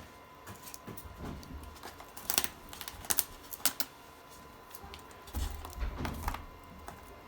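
Small plastic clicks and light rustling from handling RC servo leads and Y-harness connectors: a few scattered clicks in the middle and a busier cluster of clicks and soft knocks near the end.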